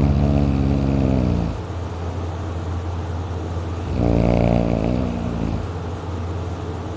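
Heavy snoring from a sleeper: two long snores, one at the start and one about four seconds in, each lasting about a second and a half, with breathing between them.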